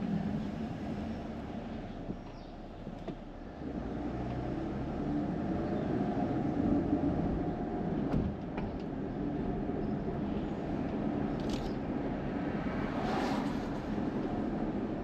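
Road and engine noise heard inside a car's cabin while driving: a steady low rumble that drops off briefly about two seconds in.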